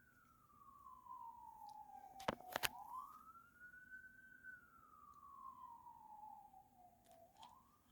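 Faint emergency vehicle siren in wail mode, a single tone slowly rising and falling about twice. Two sharp clicks come close together about two and a half seconds in.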